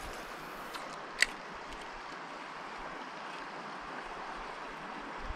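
Steady rush of river current, with one sharp click a little over a second in.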